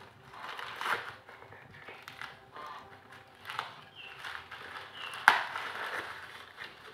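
Handling noise while unpacking: rustling and scraping of packaging and objects, with one sharp click a little over five seconds in.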